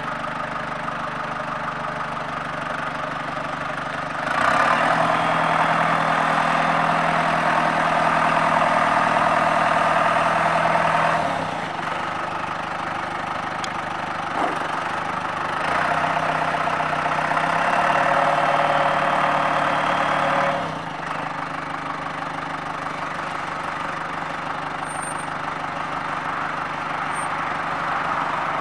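John Deere 4045 four-cylinder diesel engine of a 5093E tractor running steadily. Twice it gets louder and brighter for several seconds, first from about four seconds in to eleven, then from about fifteen to twenty-one seconds, and each time it drops back to the steady run.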